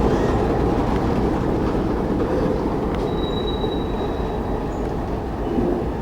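Diesel-hauled passenger train rolling slowly past: a steady rumble of wheels on rail that slowly fades, with a brief thin wheel squeal about three seconds in.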